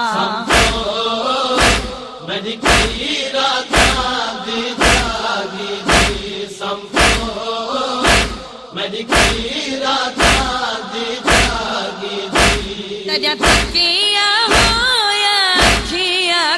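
Noha lament: voices chanting a wavering melody over a steady thumping beat, about two thumps a second.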